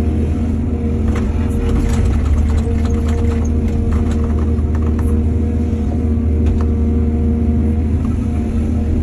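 Heavy diesel engine of an excavator running steadily under load, with a scatter of knocks and clatter between about one and five seconds in.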